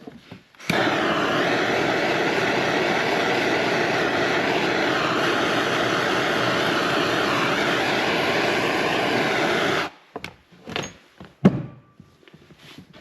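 A loud, steady rushing noise starts abruptly and runs for about nine seconds before cutting off sharply, followed by a few sharp knocks.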